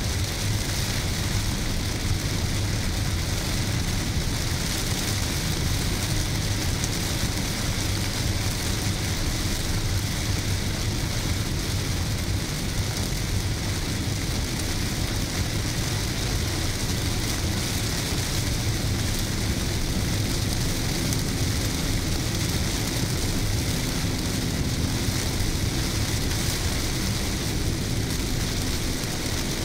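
Heavy rain falling on a car's roof and windshield, heard from inside the cabin, over a steady low rumble of engine and tyres on the wet road.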